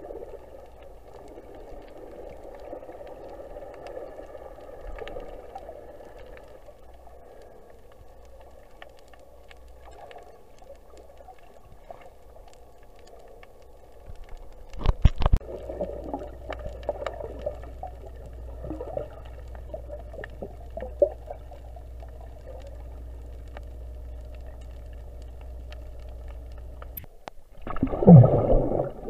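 Muffled underwater sound recorded by a camera held under the surface: steady water noise with gurgling and a faint steady hum. A few loud knocks come about halfway through, and after a brief drop-out near the end the gurgling grows louder.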